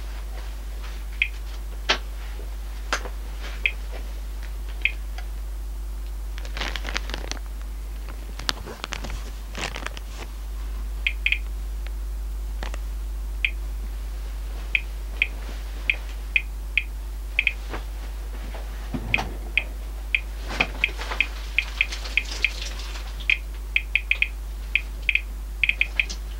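Thermo Scientific RadEye G-10 gamma survey meter chirping once for each detected gamma count: short high beeps at irregular intervals, sparse at first and coming much faster in the last several seconds as the dose rate climbs. A plastic bag rustles around seven and nine seconds in, over a steady low hum.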